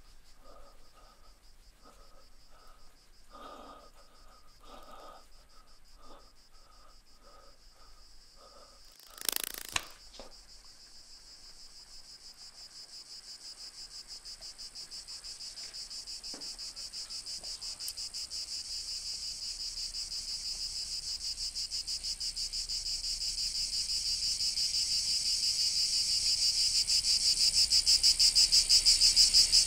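Chorus of cicadas buzzing in a high, fast-pulsing drone that starts after a brief sharp noise about nine seconds in and swells steadily louder to the end. Before it, only faint short chirps repeat.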